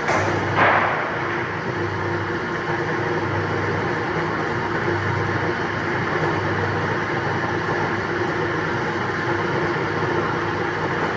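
Wood lathe running steadily with a constant motor hum, with a brief louder burst about a second in.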